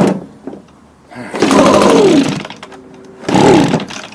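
Echo ES250 blower's small two-stroke engine being pull-started: two rope pulls, each cranking it briefly with a falling whir, and it does not keep running. The engine is failing to start, which he puts down to a carburetor that needs cleaning.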